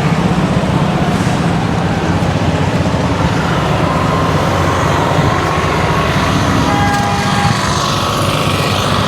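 A motor or engine running steadily, a loud, fast-pulsing low hum with a brief higher tone about seven seconds in.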